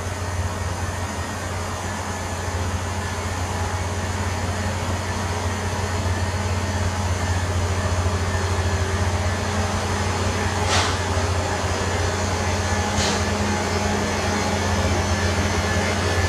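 Loram rail grinder running: a steady low drone with a noisy haze over it, slowly growing louder, and two short hisses about eleven and thirteen seconds in.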